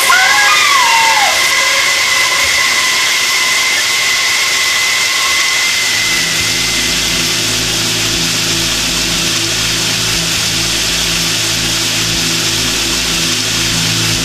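Shower running: a steady hiss of spraying water. About six seconds in, a low, steady drone of several held pitches joins it and continues.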